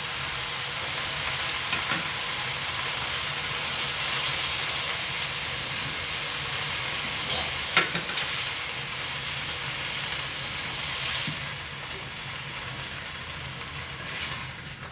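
Chicken breasts sizzling steadily as they fry in olive oil in a skillet, with a few sharp clicks scattered through the sizzle.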